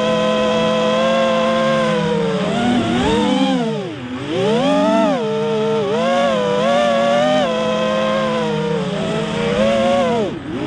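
Quadcopter's electric motors and propellers whining, the pitch swinging up and down with throttle. The pitch plunges sharply about four seconds in and again near the end as the throttle is chopped, then climbs back.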